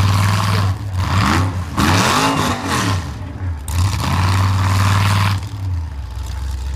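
Off-road rock-racing buggy's engine under load as it climbs over boulders: held at steady revs, then revved up and down several times about a second and a half in, then held again.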